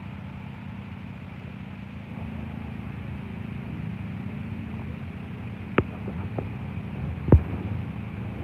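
A motor vehicle's engine running at a steady idle, a low even hum. Two sharp knocks cut through it, the second, about seven seconds in, the louder.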